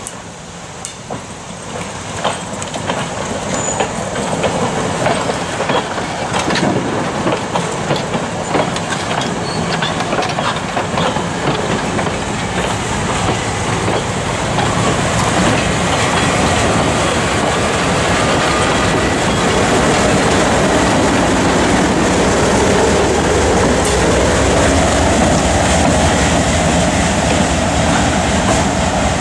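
Diesel-hauled train drawing nearer and running past, led by an MLW/ALCO C424 locomotive. It grows steadily louder over the first fifteen seconds or so, with wheels clicking over rail joints, then settles into a steady diesel engine drone and wheel noise.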